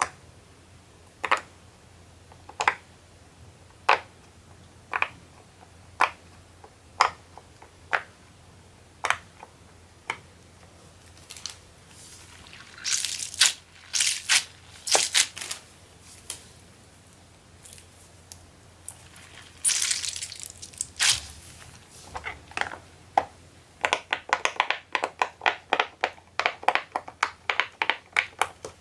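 Silicone Pop It fidget toy bubbles being pressed, popping one at a time about once a second. Midway come two stretches of crinkly, squishy handling noise, and near the end a fast run of pops.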